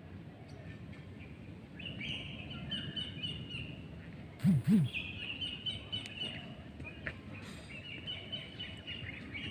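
Songbirds singing in repeated chirping phrases, with two short, loud low-pitched sounds in quick succession about halfway through.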